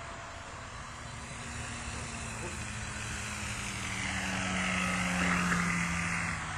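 Radio-controlled scale Hawker Typhoon model aircraft's motor and propeller droning as it passes low, growing louder and dropping slightly in pitch as it comes close, then stopping abruptly near the end.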